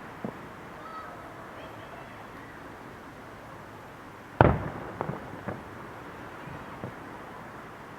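Fireworks going off: one loud boom a little past halfway, then several smaller bangs over the next couple of seconds, with a faint pop near the start.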